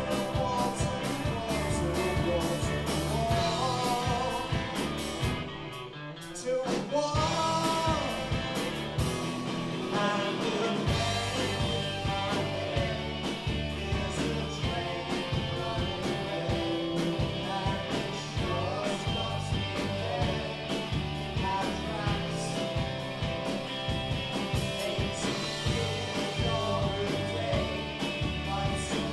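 Live rock band playing with two electric guitars and drums, with no lead vocal line. About six seconds in the band thins out and drops in level, then builds back to the full sound by around eleven seconds.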